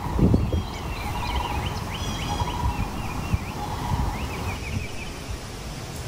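Outdoor nature ambience: birds chirping and trilling in short repeated phrases over gusty low rumble, with a steady hum around one pitch that stops near the end.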